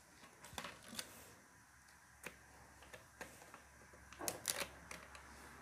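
Light metallic clicks and ticks of a circlip being spread with circlip pliers and snapped into place on the kick-start shaft of a Hero HF Deluxe motorcycle engine. The clicks come scattered, with the loudest cluster a little past four seconds in.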